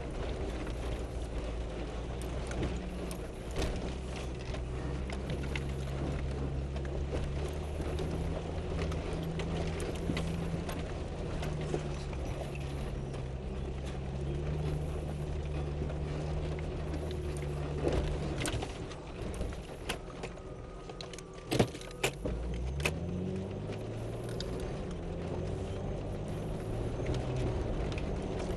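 A truck's engine heard from inside the cab, running at a steady low speed while driving a rough dirt trail, with light rattles and knocks from the cab. About 18 seconds in the engine note drops away and a few sharp knocks come. Then it picks up again, rising in pitch as the truck accelerates.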